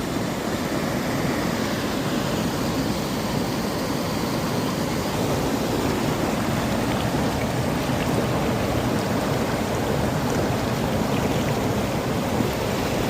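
Waterfall's water rushing steadily, a dense, even roar of falling water with no breaks.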